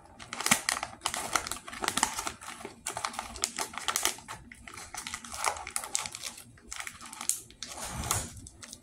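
Printed lid being peeled and crinkled off a single-serve plastic cereal cup: a dense, irregular run of sharp crackles and clicks.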